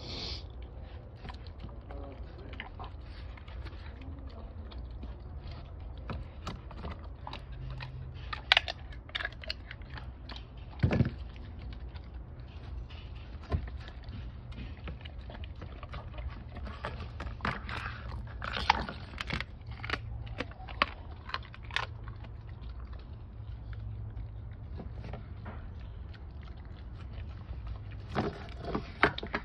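Doberman chewing and crunching raw meat and bone from a stainless steel bowl, with irregular sharp crunches and clicks, the loudest about 8 and 11 seconds in and again near the end, over a steady low hum.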